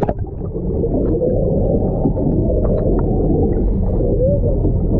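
Muffled rushing of water heard with the camera held under the surface beside the boat: a dense, dull rumble with everything higher cut away, and a few faint ticks.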